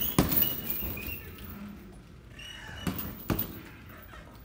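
Gloved punches thudding into a hanging heavy punching bag: a quick flurry near the start and two more about three seconds in, with short high squeaks between them.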